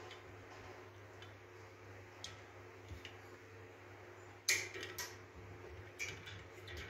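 Light metal clicks and knocks from the parts of a hand-operated bucket grease pump being handled during reassembly: the steel pump tube with pliers clamped on it, and the follower plate. The loudest clank comes about four and a half seconds in, with smaller clicks after it.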